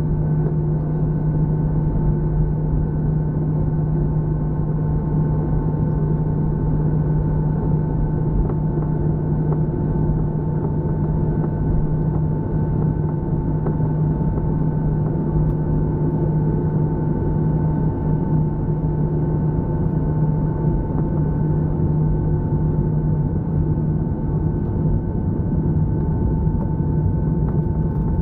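Airliner's jet engines at taxi power, heard inside the passenger cabin: a steady drone with a constant low hum and a fainter whine held at one pitch, over low rumble.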